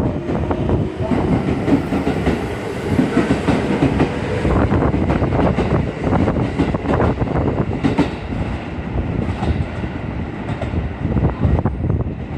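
Electric commuter train running through a station, its wheels clacking over rail joints and points in an irregular run of sharp clicks over a steady rumble.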